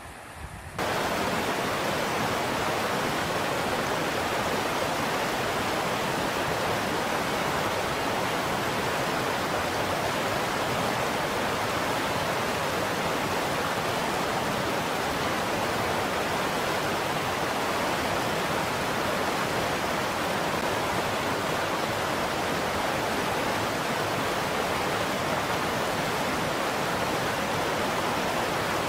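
River water rushing steadily over rocks in shallow rapids, coming in suddenly about a second in.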